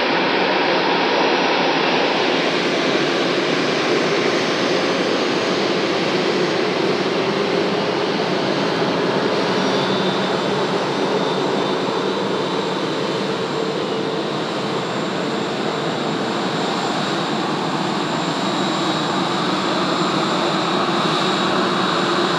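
Airbus A320-214's CFM56-5B turbofan engines running at taxi idle as the airliner rolls past: a steady, even rush, joined about ten seconds in by a thin high whine.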